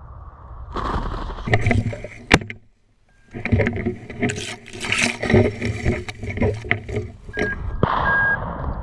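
Rustling through tall dry grass, then a single shotgun shot about two seconds in, followed by crunching footsteps through dry grass and stubble.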